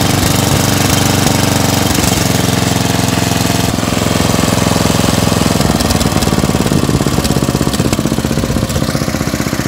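10 hp Briggs & Stratton single-cylinder lawn tractor engine running just after a cold start on a replacement carburetor, with a slight miss every now and then that the owner puts down to air-fuel mixture needing adjustment. About six seconds in its beat slows and turns more pulsing as the throttle is brought down toward idle.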